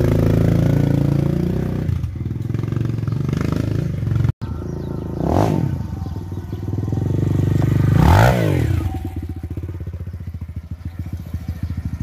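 Kawasaki KLX 150 single-cylinder four-stroke engine breathing through an aftermarket Norifumi RV1 racing exhaust. It is held at raised revs, then drops to a lumpy idle. After a cut, its note rises and falls twice as the bike is ridden, then settles to a low, pulsing putter.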